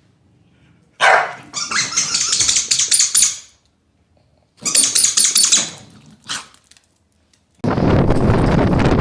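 A dog barking loudly in two spells, with a brief bark after them. A loud steady rushing noise, like wind on the microphone, takes over near the end.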